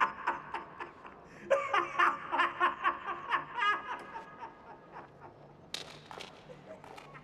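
A man laughing in rhythmic 'ha-ha' pulses, about four or five a second: one burst tails off in the first moment, and a second hearty burst starts about a second and a half in and fades away. A short sharp click sounds near the end.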